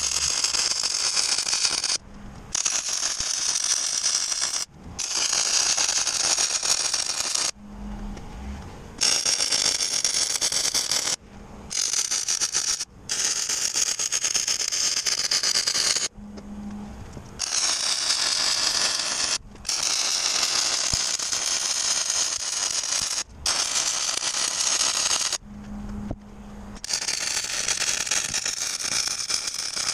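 Arc welding on steel plate: a loud, steady crackling hiss from the arc, stopped and restarted about ten times as bead after bead is laid, with short pauses in which only a low hum remains.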